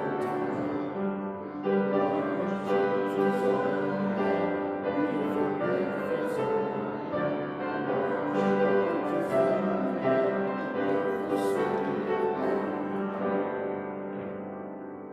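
Piano playing a slow hymn in held chords, fading toward the end.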